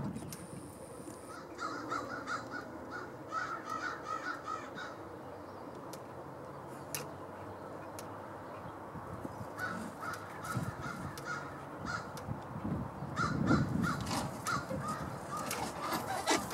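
Crow-family bird calling: runs of short, rapidly repeated notes in three bouts, about two seconds in, around ten seconds and around thirteen seconds. A low rumble sits under the last bout.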